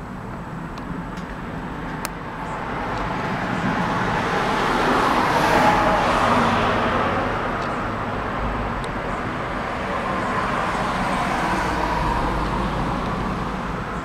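Road traffic passing: a vehicle's noise swells to a peak about halfway through and fades, then a second, weaker swell follows.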